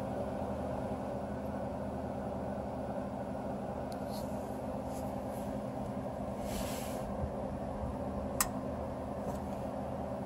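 A steady mechanical hum, with a few short hissing rustles around the middle and a sharp click about eight seconds in.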